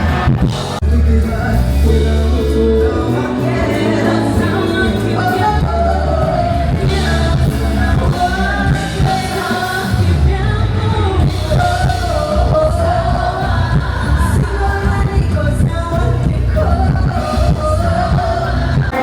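Loud pop music with singing over a heavy bass beat.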